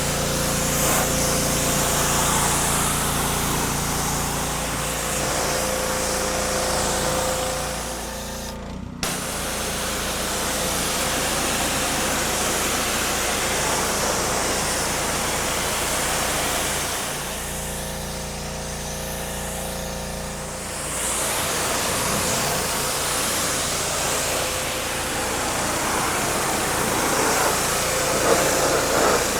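Pressure washer running, its engine a steady hum under the hiss of the high-pressure water spray.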